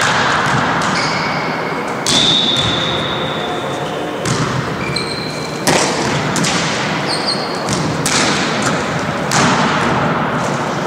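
Volleyballs being struck and bouncing on a wooden sports-hall floor during a warm-up: about five sharp smacks that echo around the hall, with a few short high squeaks.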